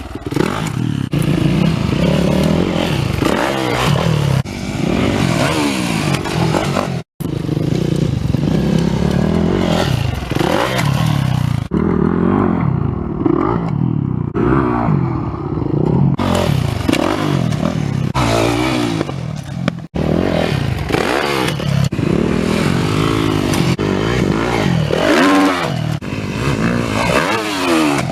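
2011 Yamaha YZ450F's four-stroke single-cylinder engine revving up and down over and over as the dirt bike is ridden, with clattering and scraping mixed in. The sound breaks off briefly about seven seconds in and again near twenty seconds.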